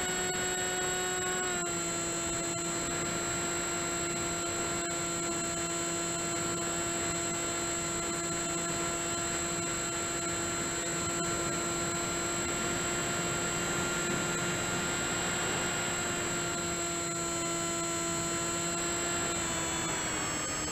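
Electric motor and propeller of an FMS Red Dragonfly RC plane whining steadily, heard through an onboard action camera over a hiss of rushing air. The pitch steps down slightly about a second and a half in and again near the end, as the throttle eases.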